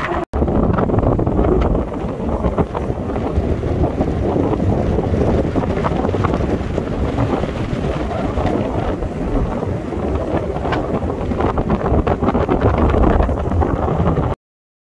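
Strong, gusty storm wind buffeting the microphone: a steady low rumbling rush. It drops out for an instant just after the start and cuts off suddenly near the end.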